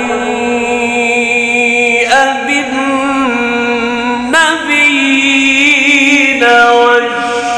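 A male Quran reciter chanting in the drawn-out, melodic mujawwad style, holding long notes. The pitch shifts about every two seconds and wavers in an ornamental trill between the shifts.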